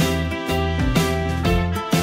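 Background music with a steady beat, about two beats a second, over a strong bass line.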